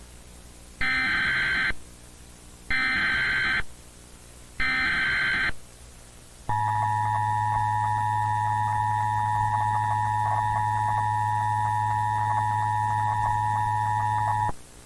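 Emergency Alert System tones: three short bursts of SAME header data, each about a second long and about two seconds apart, then the two-tone EAS attention signal, held for about eight seconds with a low hum under it, cutting off abruptly.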